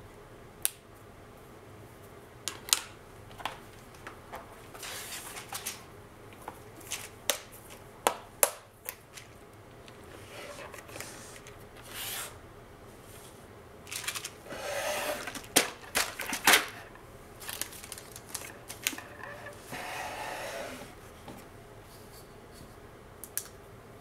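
Hands handling small craft supplies on a table: a scattered series of sharp clicks and taps of small hard objects, with a few longer rustling stretches, the longest a little past the middle.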